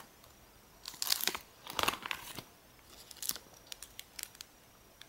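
Clear plastic binder sleeve pages crinkling and crackling as they are handled and turned, in several short bursts followed by a few light clicks.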